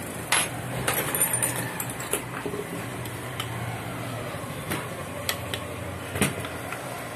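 Scattered metallic clinks and knocks of a spanner and loose parts against a sewing machine head as its shaft fittings are undone, with the sharpest knocks about a third of a second in and about six seconds in. A steady low hum runs underneath.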